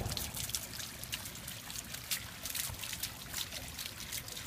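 Small stone-column bubbling fountain: water welling up from the tops of the columns and trickling and splashing down the stone onto pebbles, a steady bubbling with irregular crackly splashes.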